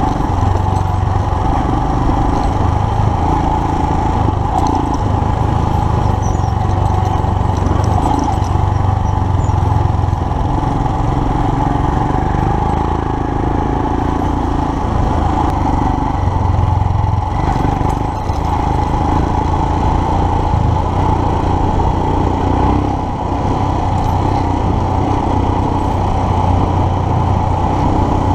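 Royal Enfield Himalayan's single-cylinder engine running under way on a dirt road, heard from the bike itself. The engine note swells and eases every few seconds with the throttle, with a couple of brief lulls.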